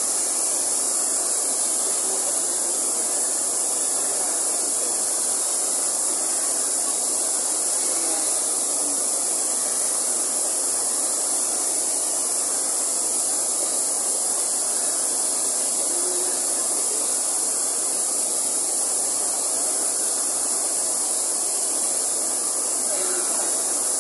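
Water pouring over a low weir into a pool: a steady rush of falling water.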